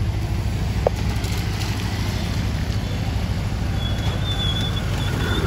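Steady low rumble of engine and road noise from riding in a moving vehicle, with one short tick about a second in.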